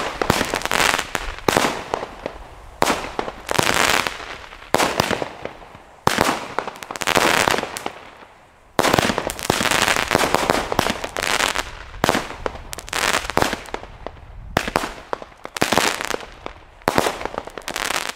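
A 19-shot consumer fireworks cake (Fire Event 'Butterfly') firing shot after shot, roughly one a second. Each shot is a sharp report followed by under a second of dense crackling, with short lulls between the volleys.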